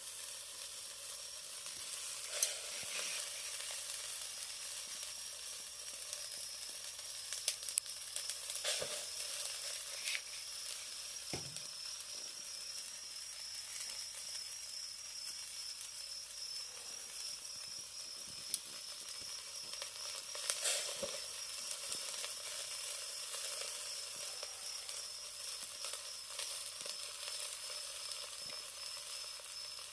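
Chicken thigh sizzling as it grills over charcoal in a shichirin, a steady fat-spitting hiss broken by a few sharp pops.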